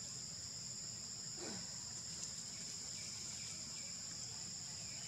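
A steady, high-pitched insect chorus. About a second and a half in, a brief falling squeak is heard.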